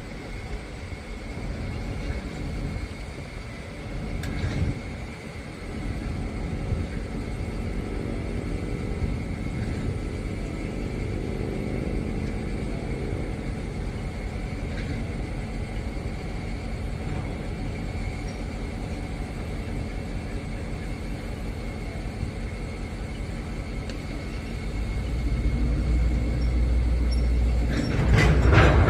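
Diesel switching locomotive rumbling as it works, growing louder in the last few seconds, with a faint steady high whine under it. A loud sudden noise comes just before the end.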